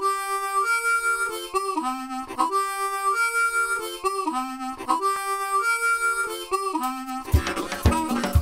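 Background music: a solo melodic instrument plays a short tune, the same phrase three times, each ending on a low note. About seven seconds in, a drum beat and a fuller backing come in.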